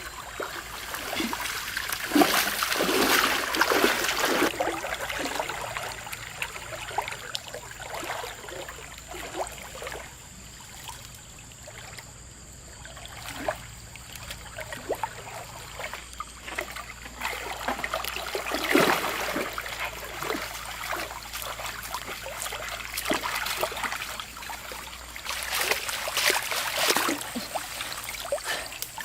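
River water running over rocks, with splashing in three louder spells: about two seconds in, around the middle, and near the end.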